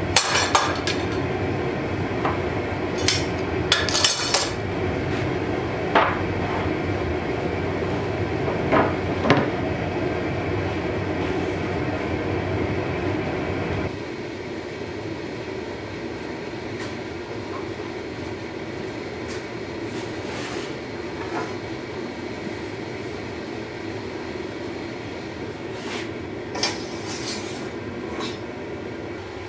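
Gas-fired forge burners running with a steady rush, with sharp metallic clanks of steel being handled in the first half and once more near the end. The steady noise drops in level about halfway through.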